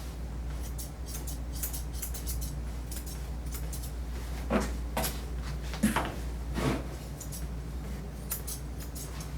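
Grooming shears snipping repeatedly through a dog's coat, a run of short crisp cuts with a few louder ones in the middle, over a steady low hum.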